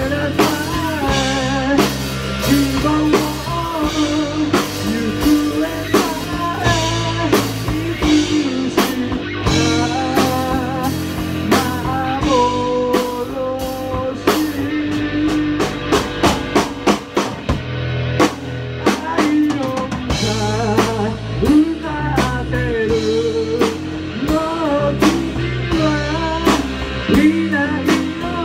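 A live rock band playing a ballad: electric guitar and bass guitar over a drum kit, with frequent snare and bass-drum hits.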